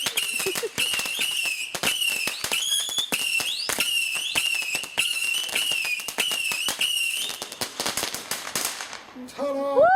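Fireworks finale: rapid bangs and crackling with whistling fireworks screeching over them, a wavering whistle and repeated rising whistles, dying away to scattered crackles after about seven seconds. A short, loud, rising pitched sound comes at the very end.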